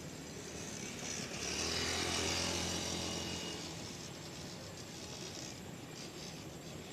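A large bus driving past, its engine and tyres growing louder to a peak about two seconds in and then fading away.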